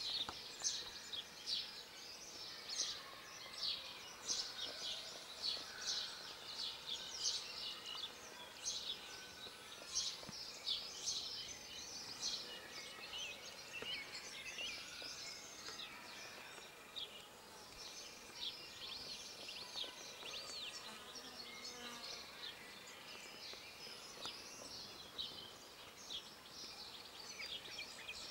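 Small songbirds chirping: many short, high chirps in quick runs, busy at first and thinning out in the second half, over a faint outdoor hiss.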